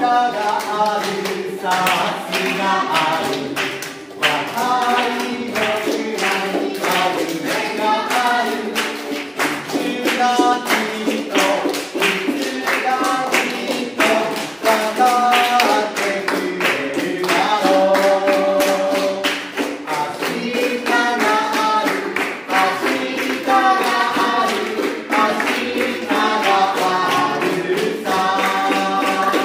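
Voices singing a song together with musical accompaniment, and hands clapping along in a steady beat.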